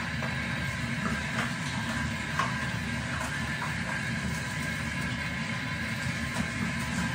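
Tap water running steadily into a bathroom sink, with a few small splashes as a face is rinsed.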